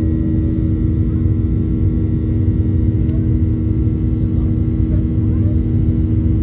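Steady cabin noise of a Boeing 737-800 with its CFM56-7B engines running in flight: an even, low rumble with two steady humming tones and no change.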